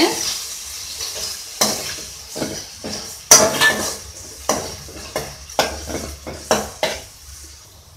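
Metal spoon scraping and clinking against an aluminium kadai as a watery tomato-onion masala is stirred, in about nine separate strokes that thin out near the end. The masala sizzles in the pan underneath.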